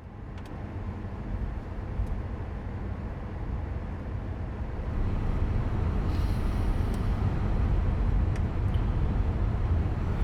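A steady low rumble, fading in and growing louder over the first five seconds or so, then holding, with a few faint clicks.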